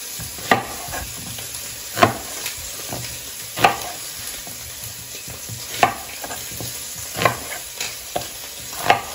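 A chef's knife cutting through whole onions and knocking on a wooden cutting board: about six sharp chops, one to two seconds apart. A steady sizzle from oil frying in a pot runs underneath.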